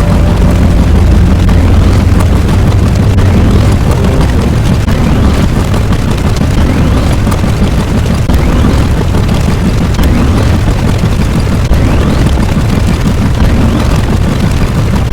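A loud, sustained deep rumble, like a long explosion or eruption sound effect, heavy in the bass and unbroken throughout.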